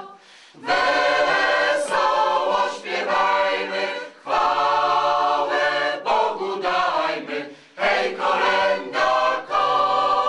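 Mixed choir singing a Polish Christmas carol (kolęda) a cappella, in phrases with short breaks between them: one near the start, one about four seconds in and one about seven and a half seconds in.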